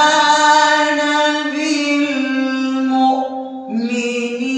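A man reciting the Quran unaccompanied in a melodic style, drawing a word out into long, ornamented held notes. The voice breaks off briefly about three and a half seconds in and then resumes on a new held note.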